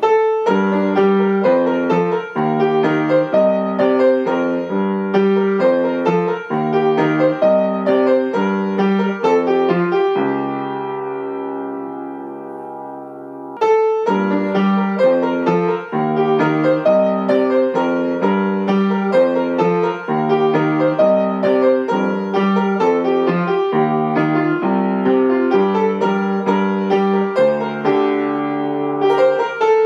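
Solo upright piano, a Yamaha, played in a rhythmic, repeating pattern of notes. About ten seconds in, a chord is held and left to ring and fade for about three seconds, then the playing picks up again.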